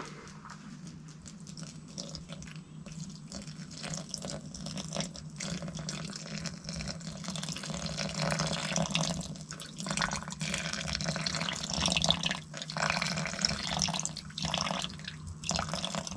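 Water poured in a stream into a container being weighed on a scale, running unevenly with brief pauses as it is measured out.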